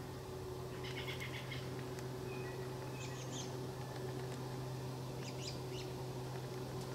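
Small woodland birds chirping in short clusters of quick high notes, about one, three and five seconds in, over a steady low hum.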